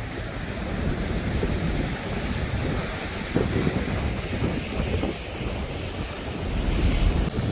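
Strong coastal wind gusting across the microphone, with rough surf from storm-driven waves behind it.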